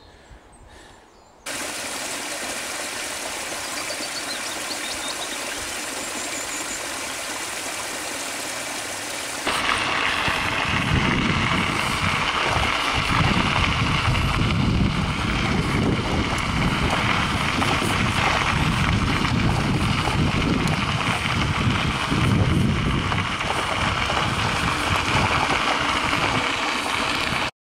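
Bicycle tyres rolling on a fine gravel path, with wind on the microphone. It is a steady hiss at first, then louder and gustier with an uneven low rumble from about a third of the way in, and it cuts off abruptly near the end.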